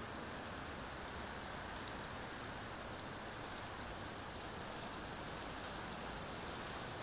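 Steady rain falling: an even, constant hiss with faint scattered ticks of drops.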